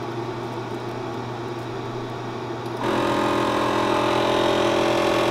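A low steady hum, then, about three seconds in, a louder steady mechanical hum with several held pitches comes in suddenly: a Dremel Digilab LC40 laser cutter running, ready to cut.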